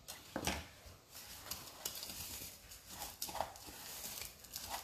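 Spoon stirring a crumb cheesecake base in a small glass bowl: irregular scrapes and light taps against the glass.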